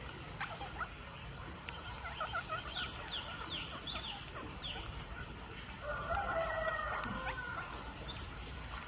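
Rose-ringed parakeets calling: a quick run of about six short, falling screeches, then a longer, lower call about six seconds in, which is the loudest sound. A few light taps come through between the calls.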